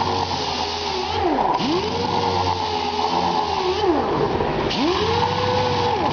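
Astro Pneumatic air-powered orbital sander running on body filler, its whine dipping sharply in pitch and climbing back up three or four times, over a steady rush of sanding.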